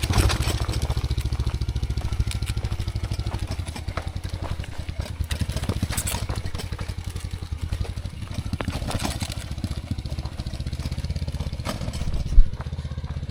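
Small motorcycle engine running steadily at low revs with rapid, even firing pulses as the bike is ridden down a steep trail of loose rocks. About twelve seconds in comes one sharp, loud bang from the load on the back, which sounds like glass.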